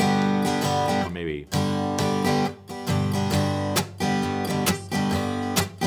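Steel-string acoustic guitar strummed in a rhythmic pattern of about two to three strokes a second, chords ringing between strokes, with a couple of brief breaks. It is a demonstration of a more advanced strum pattern than a basic 4/4 strum.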